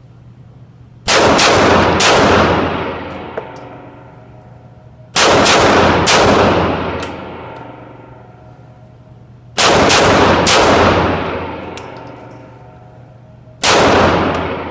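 Arsenal Firearms Strike One 9mm pistol firing quick strings of shots, four strings about four seconds apart, each ringing off in a long echoing decay.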